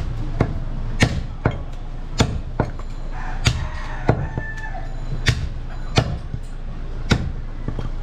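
Heavy butcher's knife chopping a goat leg into pieces on a wooden log chopping block: about ten sharp, irregular chops, roughly one every half second to second.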